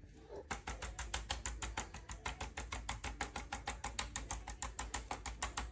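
Handheld chiropractic adjusting instrument tapping out a fast, even run of sharp clicks, about eight a second, starting about half a second in and stopping near the end.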